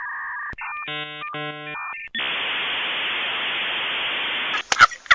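A steady electronic tone, then about a second of rapidly switching buzzy electronic tones. About two seconds in, a louder, even hiss of static starts, runs about two and a half seconds and cuts off suddenly, followed by a few sharp clicks near the end.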